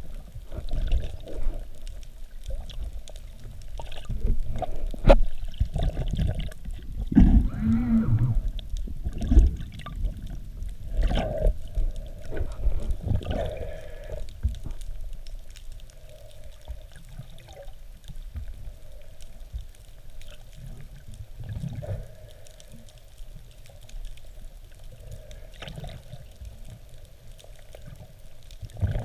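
Muffled underwater sound picked up through a camera housing: water rushing and gurgling around it as the diver moves, with a few knocks and a brief wavering low tone in the first half, then quieter.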